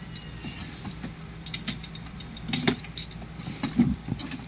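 Large cardboard box being handled and turned over on a concrete floor: scattered knocks, scrapes and clicks, with two louder thumps about two and a half and nearly four seconds in. Near the end a box cutter slices the packing tape. A steady low hum runs underneath.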